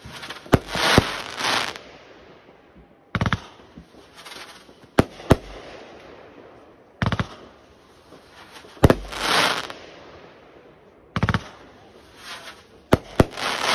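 Aerial fireworks display: about ten sharp shell bursts a second or two apart, several followed by about a second of dense crackling from the falling stars.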